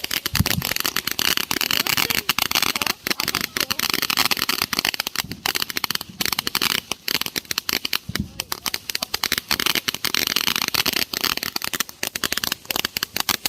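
Consumer firework crackling: a dense, continuous stream of rapid small pops and crackles, with only brief let-ups.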